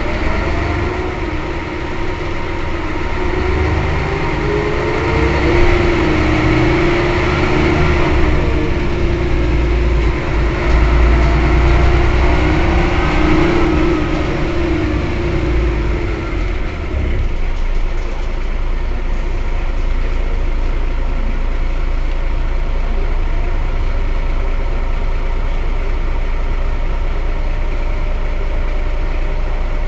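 Mercedes-Benz O 405 N city bus's diesel engine and drivetrain under way, with a whine that rises and falls in pitch. About halfway through it settles into a steady idle as the bus stands.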